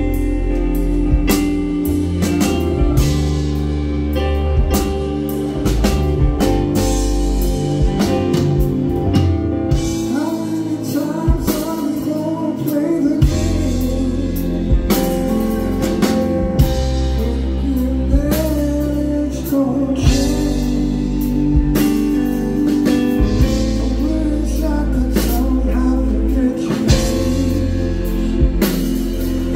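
Live rock band: a male lead voice sings over a Korg keyboard with the full band. The low end drops away for a few seconds about ten seconds in, then comes back.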